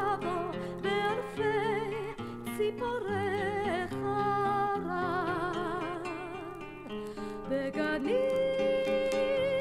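Music: a melody line with vibrato over guitar and bass accompaniment. A long held note begins about eight seconds in.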